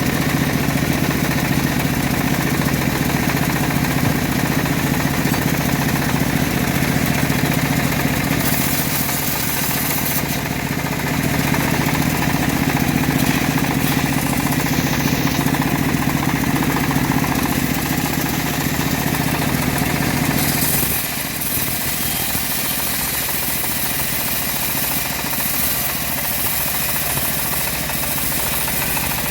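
Homemade bandsaw mill running, its engine humming steadily. About two-thirds of the way through, the low hum drops away and a higher, hissing noise takes over.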